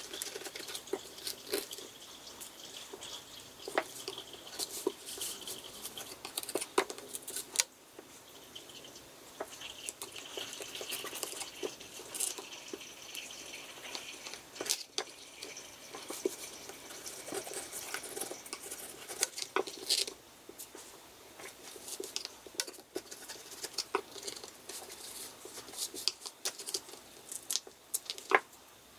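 Knife blade scraping, prying and tearing at the cardboard of an eyeshadow palette to lift out the metal eyeshadow pans, with irregular sharp clicks and scratches throughout and no steady rhythm.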